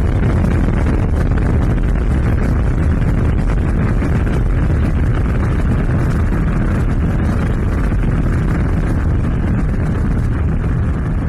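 Explosion sound effect: a long, steady, dense rumble, heaviest in the low end, that starts to die down right at the end.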